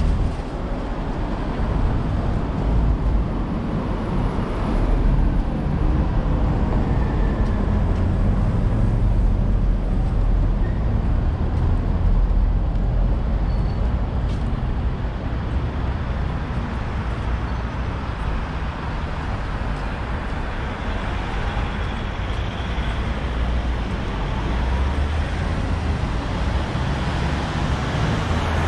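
Steady city street traffic noise, with motor vehicles running by.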